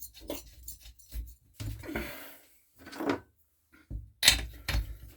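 Hand-work clatter on the strimmer bench: scattered rustles, clicks and light metal knocks, with a few sharp, louder knocks about four seconds in. No engine is running.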